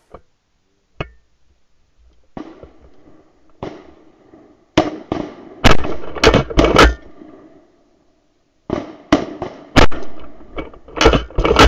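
Shotguns fired in quick volleys at ducks flying over, about a dozen shots, clustered around the middle and again near the end, each shot trailing off in a short ringing tail.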